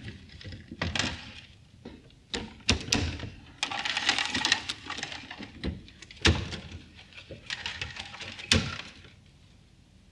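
LEGO Technic hamster-wheel machine clattering as the hamster runs the wheel that drives the chain and gears: irregular plastic knocks and rattles, with a few sharper knocks. It goes quiet near the end.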